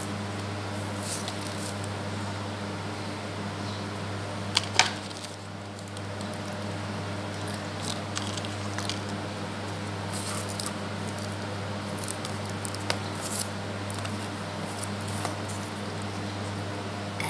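Paper and plastic earphone packaging handled by hand, giving scattered light clicks and rustles, the loudest a sharp click about four and a half seconds in, over a steady low hum.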